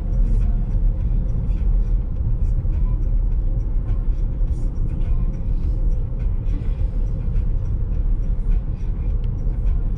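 Road noise inside a car cruising on a motorway at about 60 km/h: a steady low rumble of tyres and engine through the cabin, with a faint steady hum above it.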